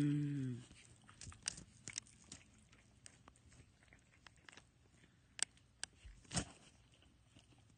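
A short hummed voice at the very start, then faint scattered clicks and rustles of a dog playing and mouthing, with small bites and nips.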